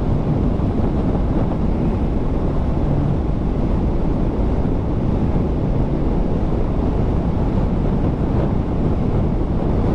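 Steady wind rushing and buffeting against a helmet-mounted microphone while riding a motorcycle at speed, a loud, even rumble that covers the engine and road noise.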